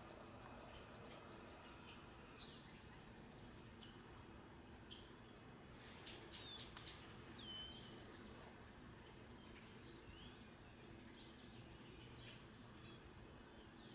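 Faint outdoor field ambience: a steady high insect buzz with a few short bird chirps and a brief trill, and one sharp click about seven seconds in.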